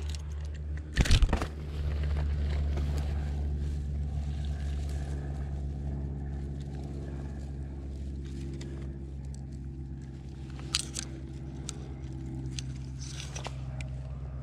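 A steady low mechanical hum throughout. About a second in comes a sudden loud crackling scrape, followed by lighter rustles and clicks as a caught bass is handled over dry grass.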